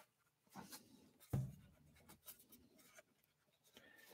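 Faint scraping and rubbing of hands on the old Dictograph intercom's base plate as it is handled and turned, with small clicks and one dull thump about a second and a half in.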